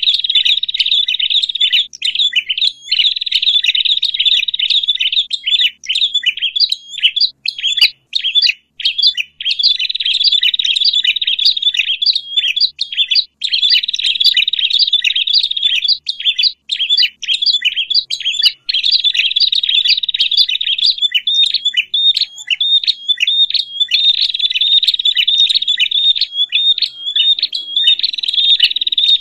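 Noisy, excited chattering of small birds, prenjak (prinias), the agitated 'ribut' calls used as a lure to stir up other prenjak. It comes in dense trilling bouts of a couple of seconds that alternate with runs of quick separate notes.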